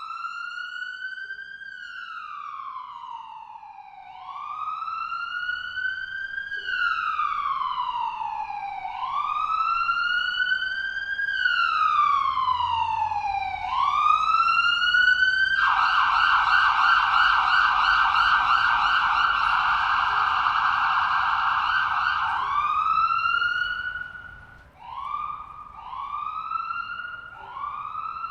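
Ambulance siren in wail mode: slow sweeps rising and falling in pitch about every five seconds, growing louder. About fifteen seconds in it switches to a rapid yelp for several seconds, then returns to shorter, quicker wail sweeps.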